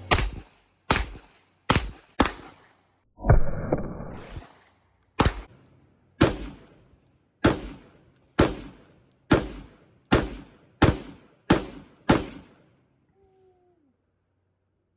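A Glock 19 9 mm pistol firing a string of about fourteen shots at a steady pace of roughly one a second, a little quicker toward the end. Each shot has a short echoing tail, and the firing stops about twelve seconds in.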